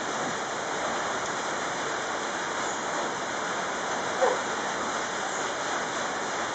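Steady rain falling, an even hiss with no break. A brief voice sound cuts in about four seconds in.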